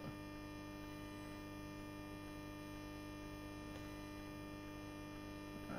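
Faint, steady electrical mains hum: a constant low buzzing tone with overtones, with nothing else happening.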